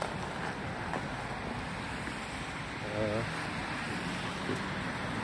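Steady rushing street noise of wind and traffic on a slushy road, with a brief wavering tone about three seconds in.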